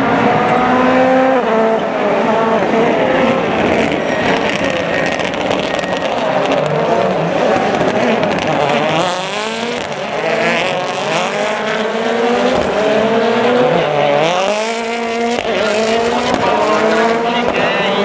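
Several World Rally Cars racing past with their turbocharged engines revving hard. The engine pitch climbs steeply and drops back again and again with gear changes.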